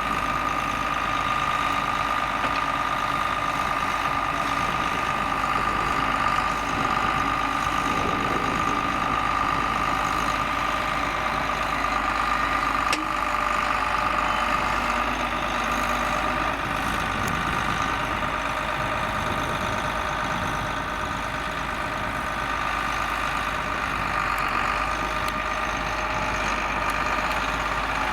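John Deere 4850 tractor's six-cylinder diesel engine running steadily under load while ploughing, with a steady high whine over the engine note.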